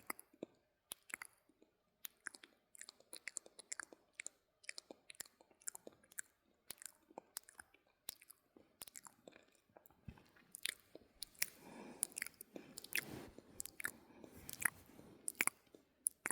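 ASMR mouth sounds: wet clicks and smacks of lips and tongue, a few a second at first and coming thicker and faster in the second half, with a soft breathy haze beneath them.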